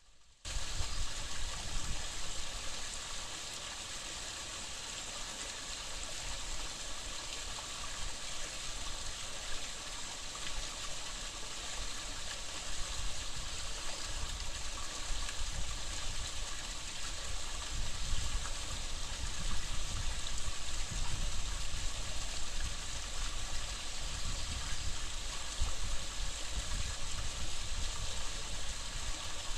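Steady rush of flowing stream water, picked up by a trail camera's microphone.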